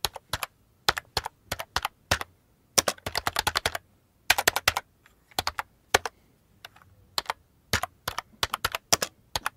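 Computer keyboard typing sound effect: irregular runs of key clicks with short pauses between them, keeping time with on-screen text being typed out.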